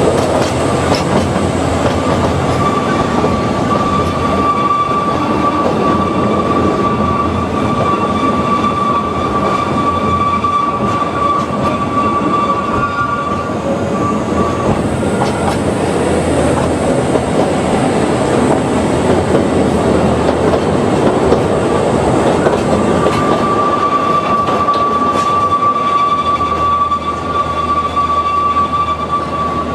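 Ōigawa Railway Ikawa Line train running, with the steady rumble and noise of wheels on track. A steady high-pitched wheel squeal sounds twice: from about two seconds in to around thirteen seconds, and again from about twenty-three seconds in.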